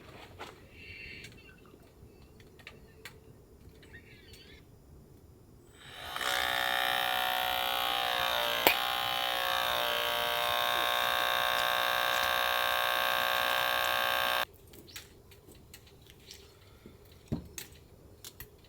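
A small electric motor buzzes steadily for about eight seconds, then cuts off suddenly. Faint handling clicks come before and after it.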